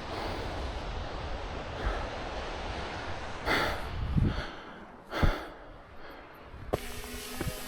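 Wind buffeting the microphone with a low rumble, and two loud, sharp breaths from the hiker about halfway through. Music comes in near the end.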